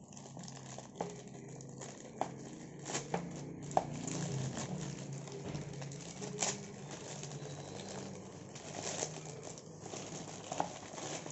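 Plastic packaging crinkling and rustling as a parcel is handled and opened, with scattered sharp crackles and clicks.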